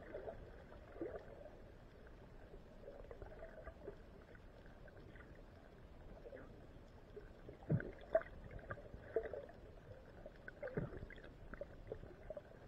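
Muffled underwater sound heard through a submerged camera housing: faint water movement with scattered soft clicks and a few dull knocks, the loudest a pair about two thirds of the way in and another near the end.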